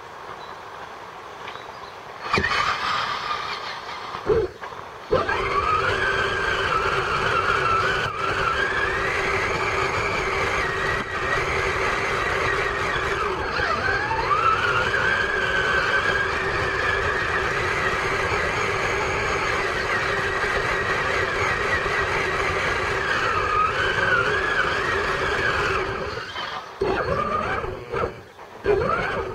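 Electric motor and gear drivetrain of a Traxxas Summit radio-controlled truck whining, the pitch wavering up and down with the throttle. It starts about two seconds in, drops out briefly a few seconds later, then runs steadily and breaks into short stop-start bursts near the end.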